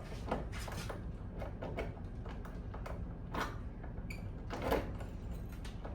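Scattered clicks and scrapes of a newly cut key being tried and turned in a Porsche 911S door lock, over a steady low background hum.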